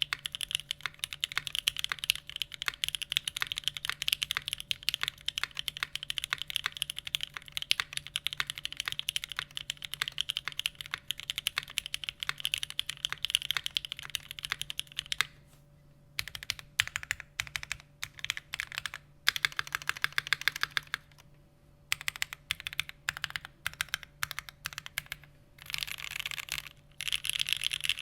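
Typing on a Shiori mechanical keyboard in a polycarbonate case with an aluminium plate, stock Gateron Snow Rabbit switches, TX stabilisers and GMK keycaps. Fast, continuous keystrokes for the first half, a short pause about halfway, then typing in shorter bursts with gaps between them.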